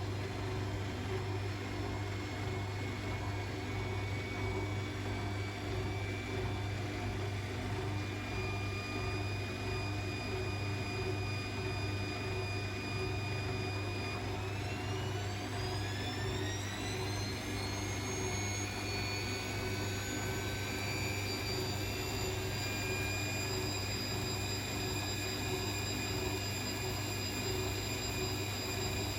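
Bosch WAE24366 washing machine on a spin cycle, over a steady low hum. Its motor whine climbs in pitch about halfway through as the drum speeds up, then holds steady at the higher speed. The machine's drum spider is broken.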